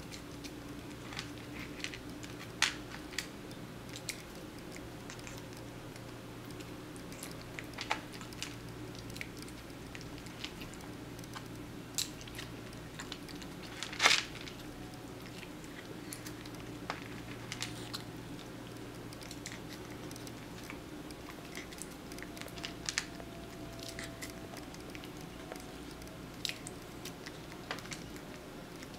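Persian kitten chewing and crunching small treats, with sharp clicks of wooden chopsticks against a plastic food bowl scattered throughout, the loudest about halfway through, over a steady low hum.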